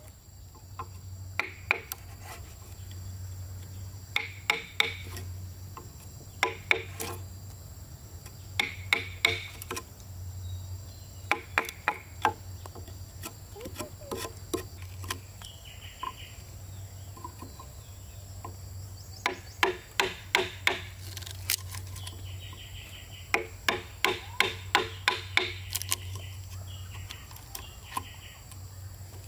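Hammer blows on wood, in bursts of several quick strikes with short pauses between, each strike ringing briefly.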